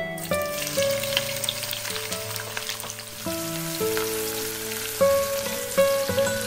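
Sliced onions sizzling and frying in hot oil, the sizzle starting as they go into the pan. Plucked acoustic guitar music plays over it.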